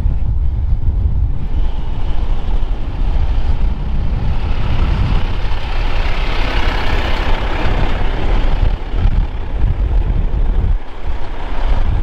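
Fendt 942 tractor's diesel engine running as it drives close past with its blade pushing snow. It grows louder in the middle, over a strong rumble of wind on the microphone.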